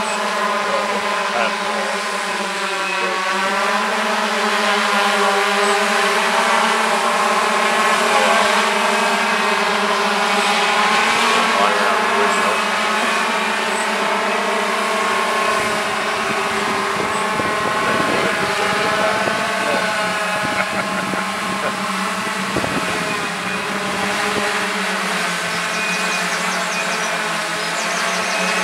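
Multirotor camera drone in flight, its propellers giving a steady buzzing hum made of several tones whose pitch wavers as the motors speed up and slow down.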